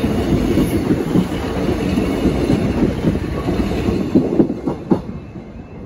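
Class 150 Sprinter diesel multiple unit passing close by, a loud steady rumble broken by the clickety-clack of its wheels over the rail joints. The last wheel clicks come about five seconds in, then the sound drops away as the rear of the train passes.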